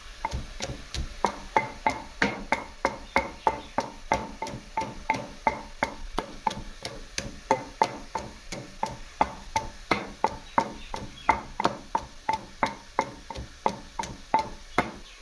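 Stone pestle pounding garlic and ginger in a stone mortar: steady knocks about three a second, each with a short ring from the stone.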